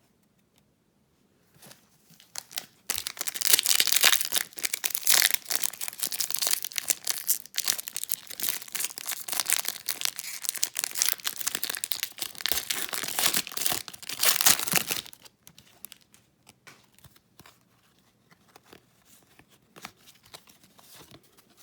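Foil wrapper of an Upper Deck hockey card pack crinkling and tearing open, a dense crackle starting about three seconds in and lasting around twelve seconds, then only faint scattered ticks.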